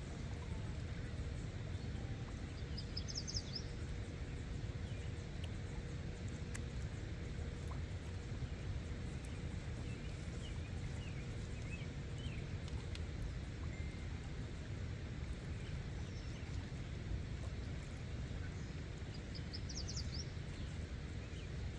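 Steady low rushing background noise with faint scattered chirps; a short, high, quick call sounds twice, about three seconds in and again near the end.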